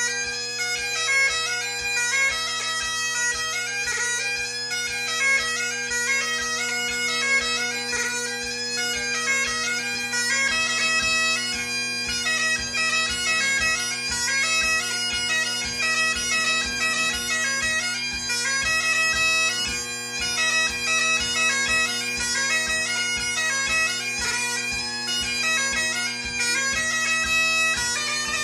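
Great Highland bagpipe played solo: the drones hold one steady tone underneath while the chanter plays a continuous, quickly moving melody.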